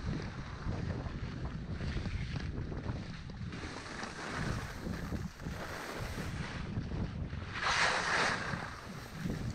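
Wind buffeting the microphone while skiing downhill, over a steady hiss of skis running on snow. About eight seconds in, a louder rushing scrape of the skis across the snow swells and fades.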